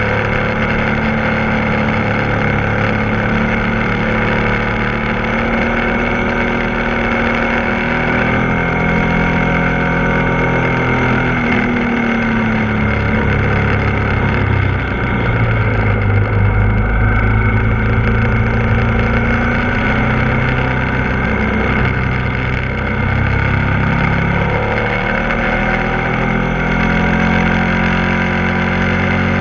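Ducati Multistrada 1260 S motorcycle's V-twin engine running under way through a series of bends, its note rising and falling with the throttle, with wind rush over the mounted camera. The engine pitch changes noticeably about twelve seconds in and again near twenty-five seconds.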